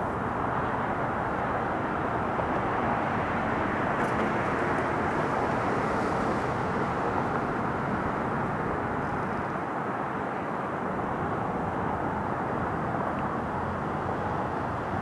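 Four-engined Airbus A380 jet airliner at takeoff power, heard from afar as a steady jet-engine rumble while it rolls down the runway and lifts off.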